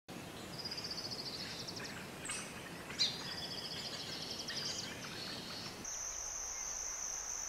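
Outdoor nature ambience: birds chirping in short high trilled phrases over a steady background hiss, with a sharp click about three seconds in. A steady high tone joins near the end.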